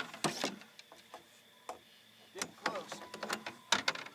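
Fishing reel cranked in uneven spurts, with clicks and short whirs, as a hard-pulling blue catfish is fought in toward the boat.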